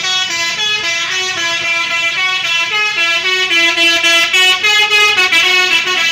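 Basuri telolet musical air horn on a bus playing a quick tune of short notes that step up and down in pitch.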